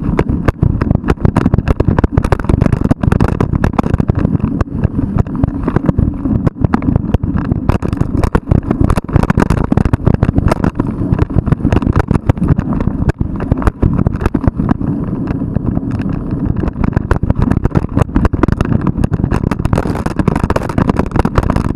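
Wind rushing over the microphone of an action camera mounted on a mountain bike moving at about 45 km/h. Dense, irregular rattling clicks and knocks from the bike jolting over rough ground run through it.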